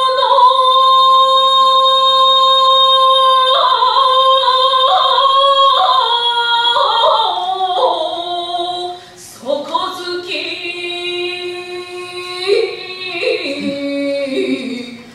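A woman chanting shigin, classical Chinese verse sung in the Japanese style. She holds one long high note for several seconds, then moves through stepped, wavering pitch ornaments. After a short breath about nine seconds in, she begins a new, lower phrase.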